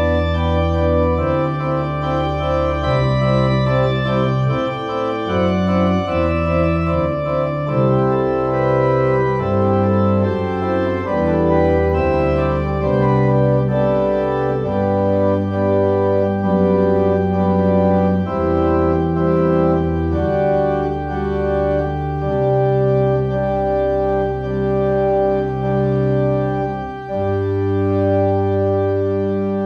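Organ music: slow sustained chords over a bass line that changes note every second or two, with a brief break near the end before the next chord.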